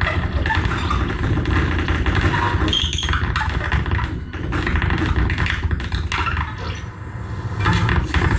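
Live noise music from guitar and laptop electronics: a dense, choppy wash of crackles, clicks and stuttering noise. It dips quieter about four and seven seconds in and builds up again near the end.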